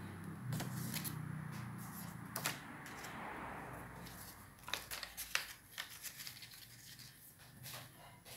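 Stiff black paper rustling and crinkling as folded paper bird airplanes are handled, with short crisp taps and clicks, the busiest stretch about five seconds in.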